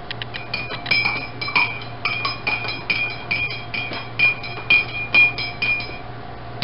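A metal utensil clinking repeatedly against a pot, about three strikes a second, each strike ringing at the same pitch.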